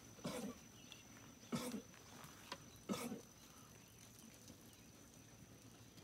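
Sheep giving three short, low calls, about a second and a half apart, in the first half.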